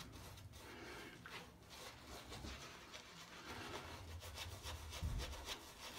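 Shaving brush working lather on a bearded face: faint, repeated brushing strokes of wet bristles against skin and stubble.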